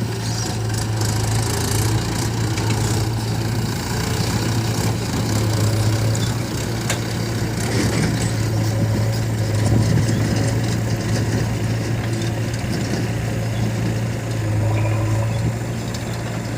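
Heavy diesel engine running steadily at low revs, its note swelling a little a few times.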